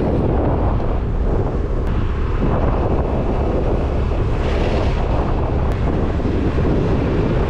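Wind buffeting the microphone on a moving motorbike taxi, over the steady road and engine noise of the scooter.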